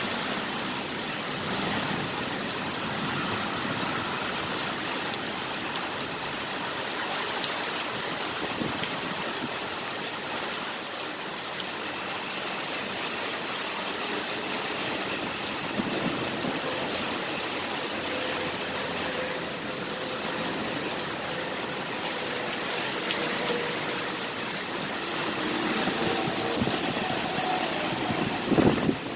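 Heavy rain falling steadily during a thunderstorm, an even hiss. A brief louder thump sounds near the end.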